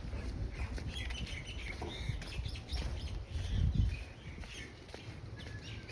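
Small birds chirping in quick short calls over a low, uneven rumble of ocean waves.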